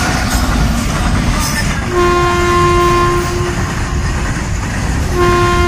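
Freight train passing with a steady loud rumble, its locomotive horn sounding one long blast about two seconds in and another starting near the end.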